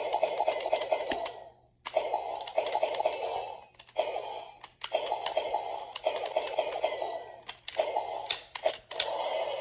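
Electronic sound effect from a Minecraft Ender Dragon toy's small built-in speaker: a thin, fast-crackling sound that plays in several runs with short breaks, the longest break about one and a half seconds in.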